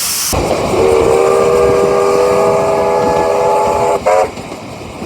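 New Zealand Government Railways chime steam whistle, of the type fitted to locomotive A428, sounding a melodious chord of several notes at once. A hiss of steam cuts off as it opens into one long blast of about three and a half seconds, followed by a single short toot.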